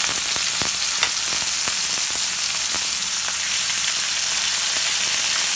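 Skin-on chicken thighs sizzling skin side down in hot coconut oil in a skillet: a steady hiss with scattered sharp pops of spattering fat.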